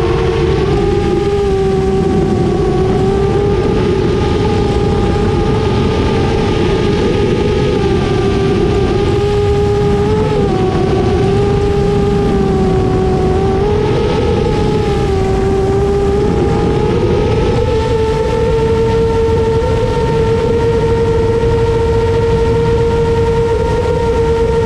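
Motor-and-propeller whine of a 7-inch FPV quadcopter (EMAX 2807 1500Kv motors on 7-inch three-blade props) in flight, its pitch wavering up and down with throttle changes and then holding steady from about two-thirds of the way in. A low rumble of air rushing past runs underneath.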